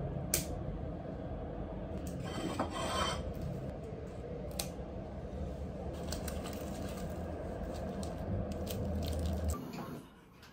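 Scissors snipping hydrangea stems a few times, with leaves and clothing rustling and scraping over a steady low background noise that stops near the end.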